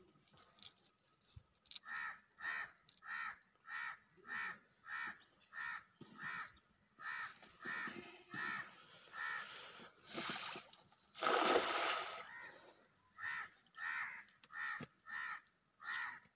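A crow cawing over and over, a little under two calls a second, pausing briefly near the middle. Between the caws a thrown cast net lands on the water with a loud rushing splash about eleven seconds in.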